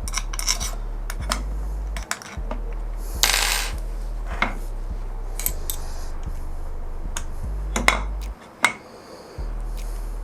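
Scattered small metal clicks and clinks as the base of a DF83V coffee grinder is fitted back on and screwed down, with a short scrape about three seconds in. A steady low hum runs underneath.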